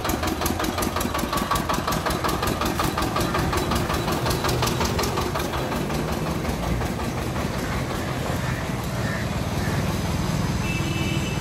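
Small engine of a motorized sugarcane juice cart running with a fast, even knock. The knock blurs into a lower, rougher running sound after about six seconds as the cart pulls away.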